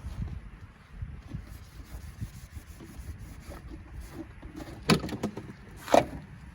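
Hands handling tail-light parts: low rubbing and shuffling with scattered small clicks, then two sharper plastic-sounding clicks about a second apart near the end.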